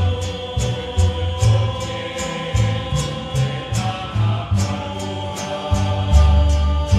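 A rondalla playing a ballad: guitars strummed in a steady rhythm over a moving bass line, with the voices holding sustained harmonised tones without words.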